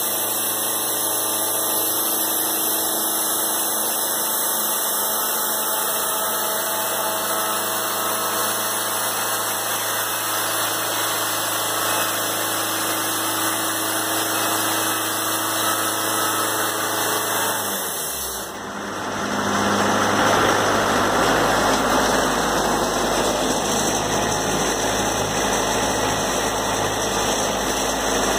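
Wood-Mizer portable band sawmill running steadily. About two-thirds of the way through, the engine note drops and a louder, rougher noise takes over as the blade works through the board being edged.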